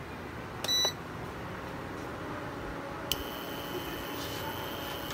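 A glass-top stove's touch control beeps once. About three seconds in, a click and a steady high-pitched whine start as the hob switches on under an empty frying pan.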